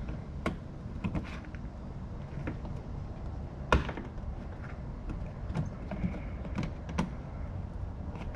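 A clip-removal tool prying at stubborn plastic push clips in a Nissan 350Z's plastic wheel-well liner: scattered sharp clicks and knocks of plastic, the loudest a little under four seconds in, over a steady low hum.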